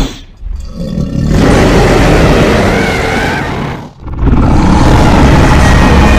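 Custom-made Suchomimus dinosaur roar sound effect: two long, deep, rumbling roars, the first swelling in about half a second in and the second starting after a short break near the four-second mark.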